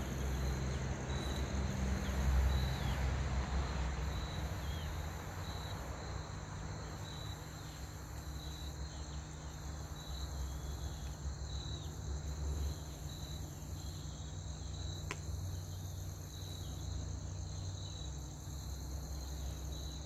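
Insects chirping: a short high chirp repeats about every two-thirds of a second over a steady higher drone, with a low rumble underneath.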